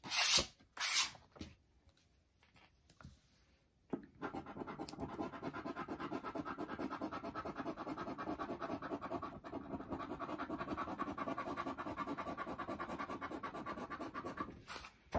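A coin scraping the scratch-off coating from a paper lottery ticket on a wooden table, in rapid, even back-and-forth strokes from about four seconds in until just before the end. There are two brief louder sounds at the very start.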